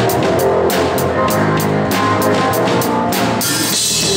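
Rock band playing live, with the drum kit loud and close and bass and guitar under it, keeping a steady beat. Near the end a cymbal crash rings out while the low end briefly drops away.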